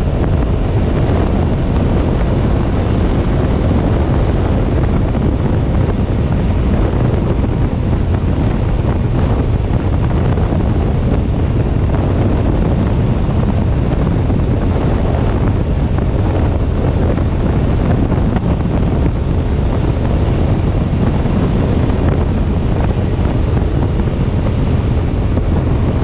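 Steady heavy wind noise on the microphone of a Suzuki M50 cruiser motorcycle at highway speed, with the bike's engine and road noise mixed in underneath.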